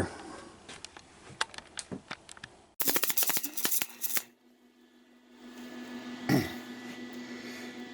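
Wire-feed welder arc crackling in a short burst of about a second and a half, about three seconds in, as a bead is laid over an old weld on a mini bike frame. Scattered light clicks come before it, and a faint steady hum and a soft thump after.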